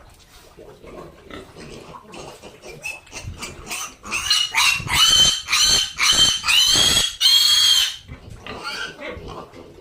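Pig squealing: a run of about six loud, shrill squeals in quick succession, with softer grunting and rustling before and after.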